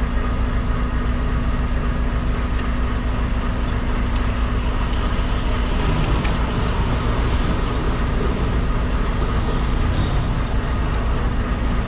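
Semi-truck diesel engine idling steadily, heard from inside the cab.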